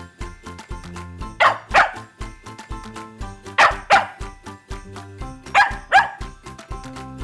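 Upbeat pop music with a steady beat, with dog barks in pairs, four double barks about two seconds apart.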